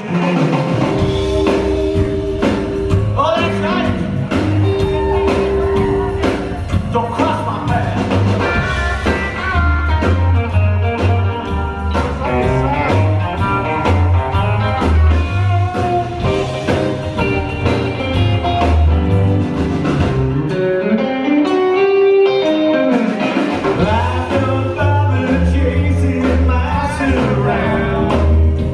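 Live rockabilly band playing without vocals: electric guitar lead over slapped upright double bass and drums. The bass and drums drop out for about three seconds near three quarters of the way through, then come back in.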